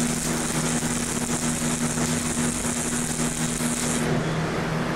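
Stick-welding arc burning on a 6013 rod, laying a bead on eighth-inch steel angle: a steady hiss over a low hum, and the high part of the hiss stops about four seconds in. The welder thinks he may have raised the amperage for this bead, which changes how the arc sounds.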